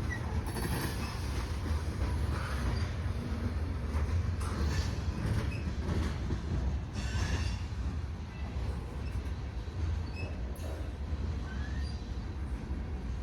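Freight train of refrigerated boxcars rolling past: a steady low rumble with short, high wheel squeaks and screeches now and then.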